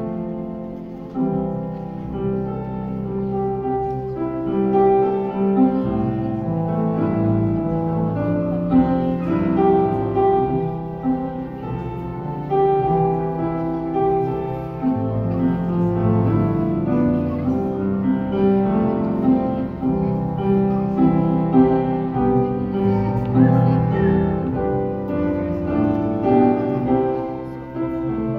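Grand piano playing a slow piece of held chords and melody notes.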